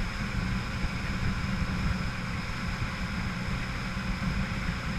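Motorboat engine running steadily, with a constant rushing noise of the boat moving on the water.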